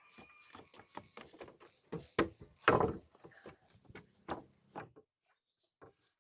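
Irregular wooden knocks and thuds of timber beams and boards being handled and set in place, loudest about three seconds in; the background hiss cuts off near the end, leaving a few separate knocks.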